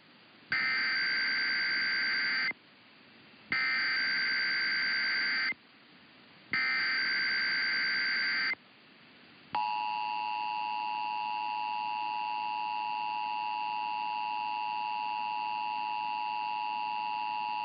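Emergency Alert System test alert opening. Three bursts of SAME header data, each about two seconds long and a second apart, start about half a second in. About nine and a half seconds in, the steady 853 and 960 Hz two-tone attention signal begins and holds.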